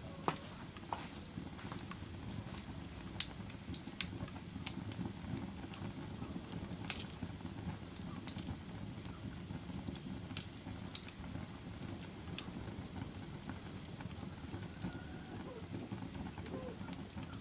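Fire crackling: a steady low rushing bed with sharp pops at irregular gaps of a second to a few seconds.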